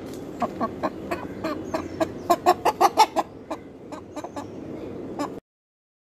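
Aseel hen clucking in a run of short, sharp clucks, coming fast and loudest in the middle, then thinning out; the sound cuts off suddenly about five seconds in.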